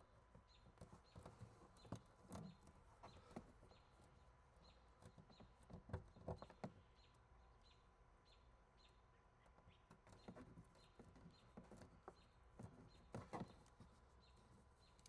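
Near silence with faint, scattered scrapes and clicks of fingernails picking old double-sided tape off the rear window glass. A faint high chirp repeats about twice a second.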